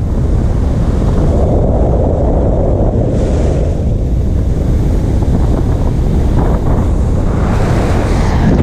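Loud, steady wind noise from a camera held out of a moving car's window, the airflow buffeting the microphone.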